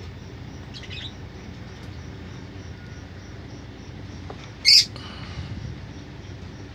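Lovebirds in a nest box: faint high squeaks about a second in, then one short, loud, shrill squawk about two-thirds of the way through.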